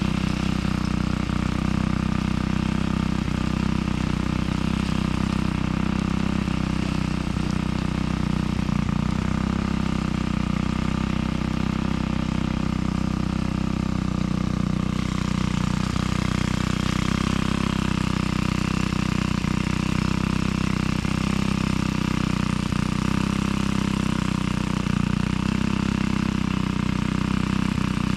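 An engine running steadily at an even speed, with a slight shift in its tone about halfway through.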